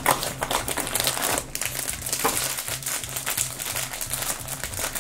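A small cardboard blind box being opened by hand, then the foil bag from inside it crinkling as it is handled and pulled open.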